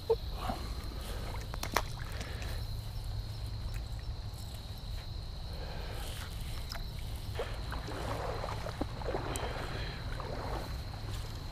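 Creek water moving around a small fishing kayak over a steady low rumble, with a faint steady high tone. There are two sharp clicks within the first two seconds, and a stretch of soft rustling water noise a few seconds before the end.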